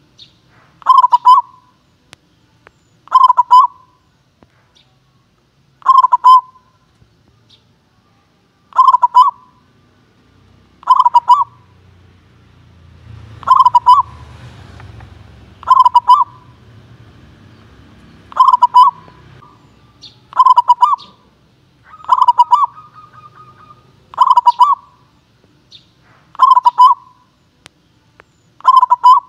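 Zebra dove (perkutut) singing: a short burst of rapid staccato coos, repeated about every two seconds, a dozen or so phrases in a row.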